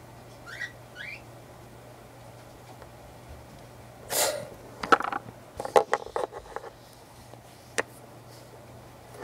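Plastic Littlest Pet Shop figurines handled and knocked against each other and the tabletop: a flurry of sharp clicks and taps, then a single click near the end. A breathy rush of noise comes just before the clicks, and two short rising squeaks come near the start.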